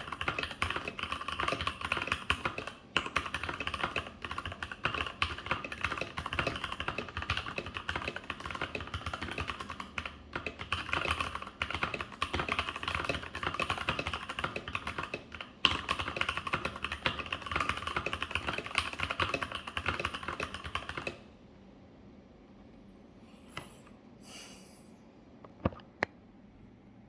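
Keychron K8 mechanical keyboard with Gateron Red linear switches being typed on fast and without pause, a dense run of keystrokes. The typing stops about three quarters of the way in, leaving only a few faint isolated clicks.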